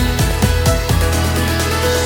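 Background music with a steady electronic beat: a falling bass thump about four times a second under held synth notes.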